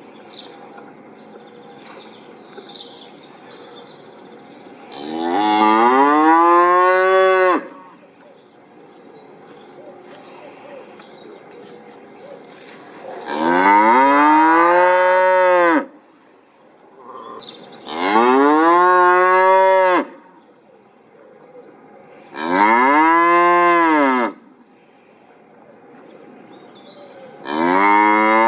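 A cow mooing five times, each moo a long call of about two seconds that rises and then falls in pitch, with pauses of a few seconds between them; the last moo begins near the end.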